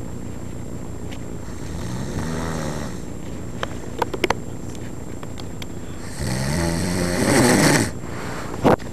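Snoring: two long snores, one about two seconds in and a longer, louder one about six seconds in, with a few sharp clicks between and near the end over a steady low background noise.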